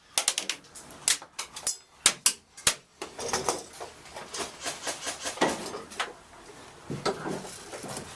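Airsoft guns firing, irregular sharp snaps in single shots and quick strings, thickest over the first three seconds and scattered after that.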